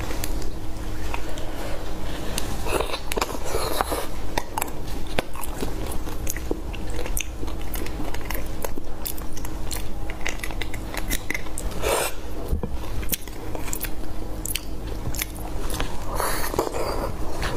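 Close eating sounds of braised beef bone marrow: a metal knife clicks and scrapes against the bone as the soft marrow is scooped out, with bites and chewing. A longer, noisier stretch near the end as she bites marrow straight from the bone.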